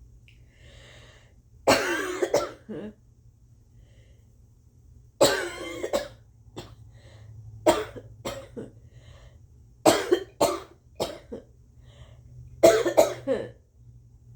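A woman coughing wet, phlegmy coughs in about five bouts a few seconds apart, some bouts several hacks in a row, from what she suspects is a slight cold.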